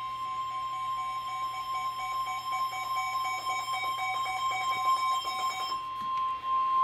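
NOAA Weather Radio warning alarm tone: a single steady high beep near 1050 Hz, held unbroken, announcing an incoming warning. A fainter, lower tone sounds beneath it and stops near the end.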